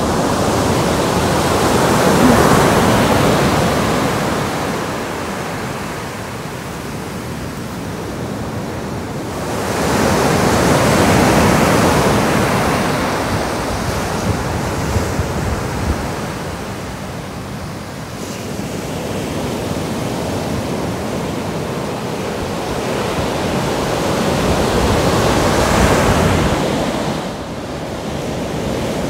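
Ocean surf breaking on a sand beach: a steady rush of waves that swells up three times, then drops away suddenly near the end.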